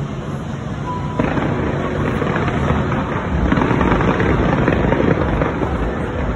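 Aerial fireworks display bursting in a dense barrage of bangs and crackles, which jumps suddenly louder about a second in.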